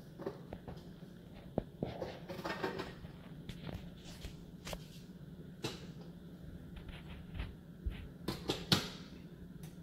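Plastic clicks and knocks from handling a Keurig K-Compact single-serve coffee maker, with a quick run of louder clacks near the end as the brewer's lid handle is lifted.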